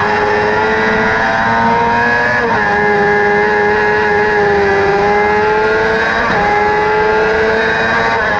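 Crosskart's motorcycle-derived engine running hard at high revs, heard from the cockpit, with two quick gear changes about two and a half and six seconds in.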